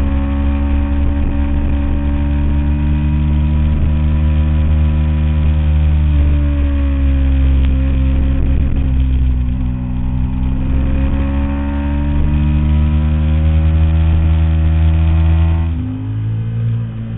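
Ducati 749S L-twin engine running through a full Termignoni exhaust under way, holding steady revs, easing off about halfway and pulling back up. Near the end the sound drops abruptly in level and changes character.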